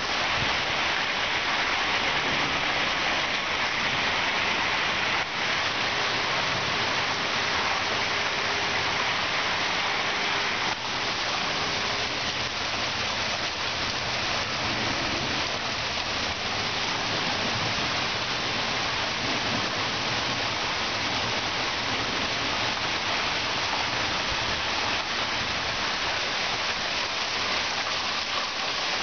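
Heavy downpour: dense, steady rain falling on the ground, plants and porch.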